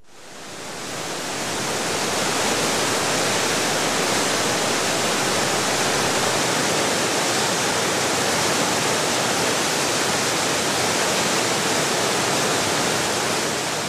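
Murchison Falls on the Nile: whitewater rushing through the rocks at the top of the falls, a steady, loud rush of water that swells up over the first two seconds and then holds even.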